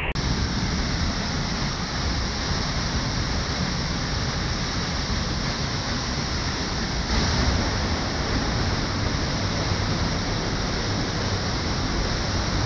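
Waterfall pouring down at close range: a steady, heavy rush of falling and splashing water.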